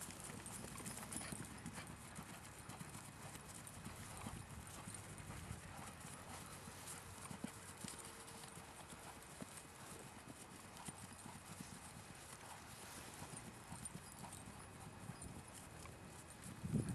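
Faint hoofbeats of a ridden horse on grass. A much louder low rumble sets in right at the end.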